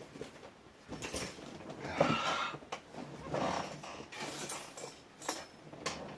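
Rummaging through lock picks and tools: irregular clicks, clatters and rustling, loudest about two seconds in.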